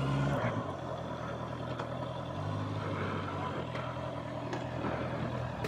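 Motorcycle engine running at low, steady revs, its pitch stepping up and down slightly a few times.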